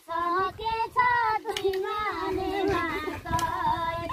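A woman singing a Nepali folk work song sung while weeding maize, with long held notes that waver and bend between short breaks.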